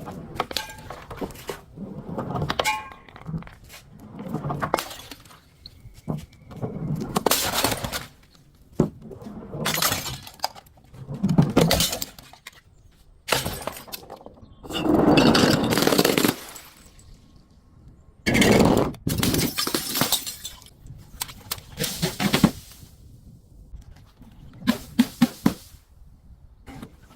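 Brittle objects being crushed one after another: a long series of crunching, breaking bursts, each lasting under a second to about two seconds, with short pauses between them.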